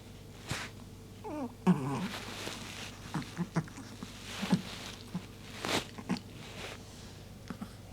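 A brief wordless vocal sound with a wavering, bending pitch about a second in, among scattered soft clicks and smacks.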